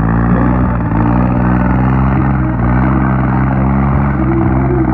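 Tractor diesel engine running steadily, an even low drone whose pitch wavers only slightly.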